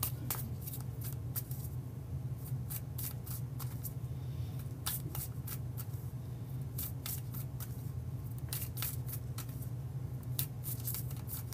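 A deck of tarot cards being shuffled by hand, packets lifted and dropped from hand to hand: a quick, irregular run of soft card clicks and flicks. A steady low hum sits underneath.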